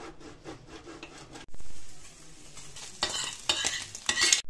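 Cheese rasping on a stainless box grater for the first second and a half. Then diced cured pork sizzles in its own rendered fat in a pan, with no oil added, while a utensil stirs and scrapes it in two louder bursts near the end.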